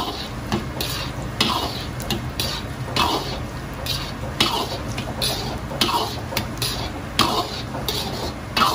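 Steel wok ladle scraping and clinking against an iron wok, about twice a second, as sliced garlic is stirred in hot oil, over a steady sizzle of frying.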